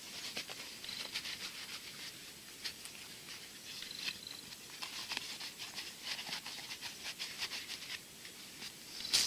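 Rustling and soft scratchy clicks of cloth safety gloves being pulled onto the hands.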